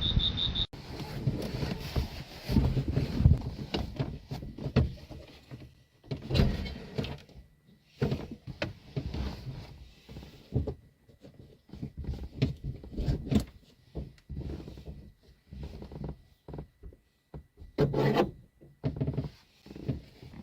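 Irregular rubbing, scraping and short knocks of objects being handled and moved about, in uneven bursts with short gaps between them.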